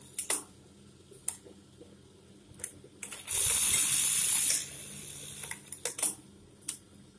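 Brother 814-2 buttonhole sewing machine running a stitch cycle: its motor hums steadily with a few sharp clicks, and about three seconds in comes one loud burst of high-speed stitching, just over a second long, that cuts off abruptly as the machine stops. The stitching sounds smooth and light.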